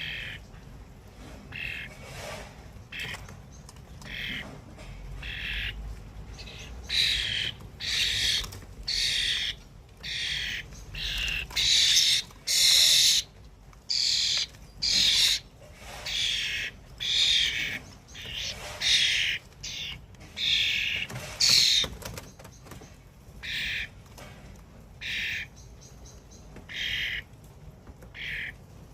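Bird calls: a long series of short, repeated calls, about one a second, loudest around the middle and fading somewhat towards the end.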